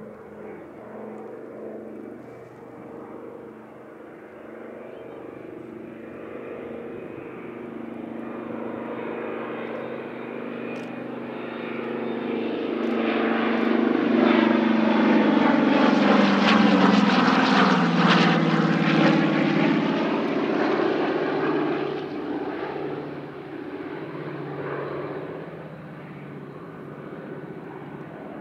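Douglas C-47 Dakota's twin Pratt & Whitney R-1830 radial engines and propellers droning through a low flypast. The sound builds as the plane approaches, is loudest a little past halfway as it passes close by, then drops in pitch and fades as it flies away.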